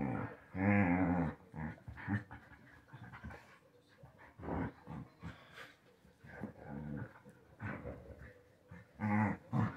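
Two dogs play-fighting: throaty growls in short bursts, the loudest about a second in and again near the end, with panting in between.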